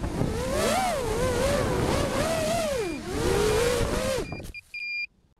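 Five-inch FPV quadcopter's Cobra 2204 2300KV motors and DAL 5040 props whining, the pitch rising and falling with throttle, with wind rushing over the onboard camera's microphone. The whine cuts off about four seconds in, followed by a short high beep and a slightly longer one.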